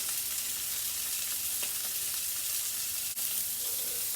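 Sausage pieces frying in olive oil with garlic and cherry tomatoes in a pan, a steady sizzle, briefly dropping out about three seconds in.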